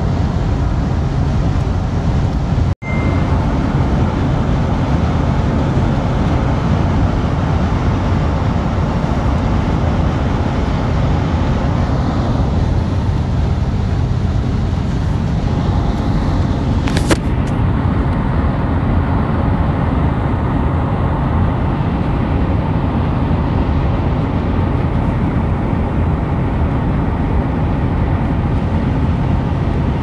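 Steady road and engine noise inside a moving car's cabin on a highway, a dense low rumble without let-up. The sound cuts out for an instant about three seconds in, and there is a single short click about halfway through.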